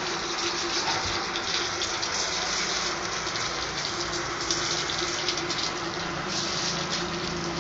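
Water from a garden hose spraying steadily onto a dog being bathed, with a constant gushing hiss.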